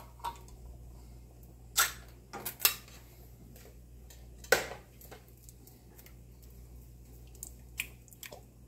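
A few sharp knocks and taps from a condensed-soup can being handled and tapped over a metal cooking pot to empty it. The loudest knock comes about four and a half seconds in, with a cluster of three in the second and third seconds.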